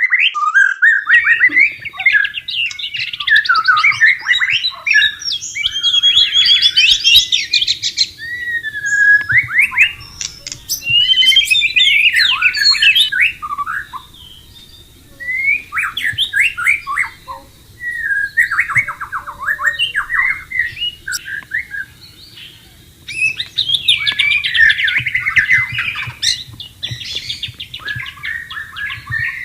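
White-rumped shama singing a long run of varied, fast whistled phrases that glide up and down, with short pauses between bursts.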